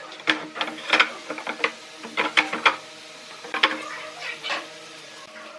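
Wooden boards being handled and set down on a workbench: an irregular string of sharp knocks and clatters, with a few louder hits about a second in and again after about two and a half seconds.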